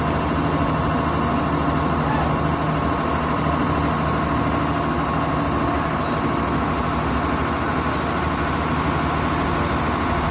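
Heavy road-paving machinery running steadily at a constant engine speed, a low even drone with a fixed-pitch hum.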